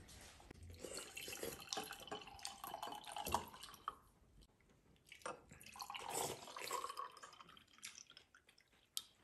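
Fruit iced tea poured from a glass carafe into a wine glass: a faint, uneven trickle and drip, a difficult pour, with a short tick of glass near the end.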